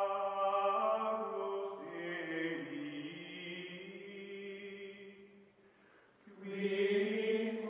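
Outro music of chant-like voices singing long held notes that slide slowly in pitch. It fades away about five and a half seconds in and comes back strongly about a second later.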